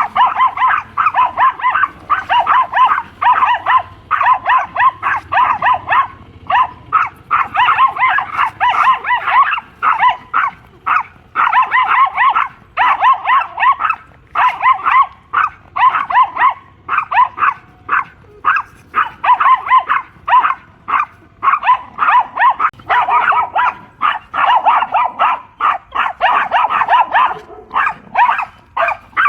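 Dogs barking in rapid runs of several barks a second, with only brief pauses: the noisy barking of a scuffle between dogs.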